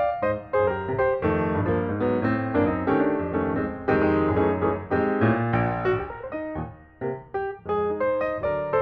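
Background piano music: a steady run of struck notes.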